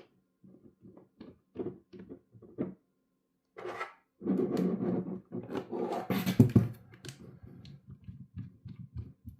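Light knocks and clicks of aluminium posts and acrylic shelves being fitted together, then a louder few seconds of rubbing and knocking in the middle, and a few ticks near the end.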